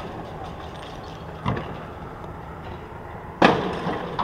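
Road traffic noise: a steady rush, with a dull thump about a second and a half in and a louder sudden knock near the end that tails off.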